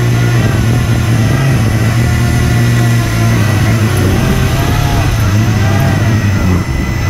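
RC hovercraft's HP server fans running loud, with a steady whine and a low hum, their pitch rising and falling again and again as the throttle is worked.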